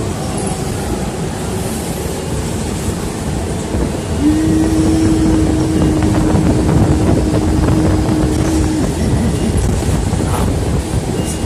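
Moving city bus rumbling inside the cabin, with a single steady low tone that starts a few seconds in and holds flat for about four and a half seconds before cutting off: the bus's broken stop-request bell, sounding as a drawn-out tone instead of a chime.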